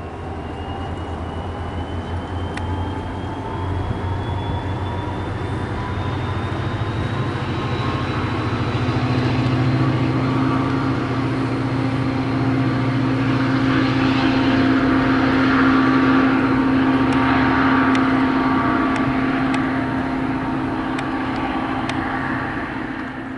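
Metro-North commuter train running along the platform with a steady low engine hum and a whine that rises slowly in pitch as it picks up speed. Wheel and rail noise builds, loudest about two-thirds of the way through, then eases.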